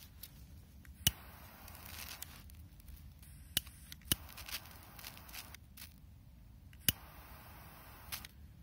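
A lighter struck four times in short, sharp clicks, two of them close together, each followed by a soft hiss. These are repeated attempts to light a firecracker fuse that will not catch.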